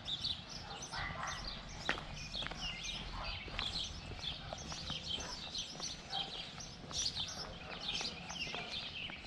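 Several small birds chirping and singing, with a person's footsteps on asphalt.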